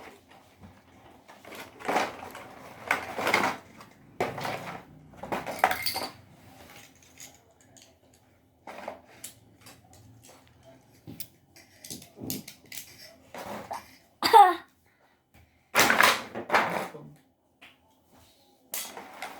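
Beyblade spinning-top parts and packaging being handled: irregular clatter and clicks of hard pieces, with quiet gaps between them. A short wavering high-pitched sound comes about 14 seconds in.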